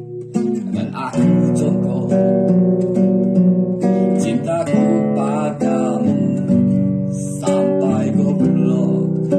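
Acoustic guitar strummed and picked, its chords changing every second or so, with a voice singing along.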